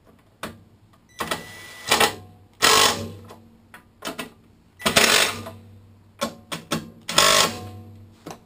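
A tool running in the bolts that hold the mower engine's gas tank: four short bursts of mechanical rattling, each under a second, with lighter clicks between them. The bolts are only being started, not yet tightened.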